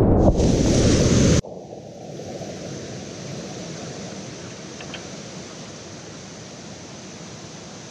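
Whitewater rapid: loud, close rushing and splashing of water over a kayaker's action camera, cutting off suddenly about a second and a half in to a steady, quieter rush of the rapid.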